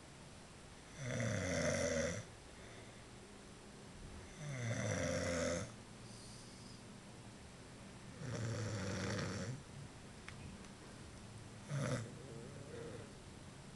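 A man snoring in his sleep. There are three long snores about three and a half seconds apart, each lasting a second or so, then a brief, shorter one near the end.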